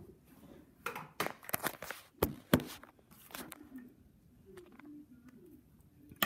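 A handful of sharp knocks and thumps in a small room, bunched between about one and two and a half seconds in, the last two the loudest; quieter after that.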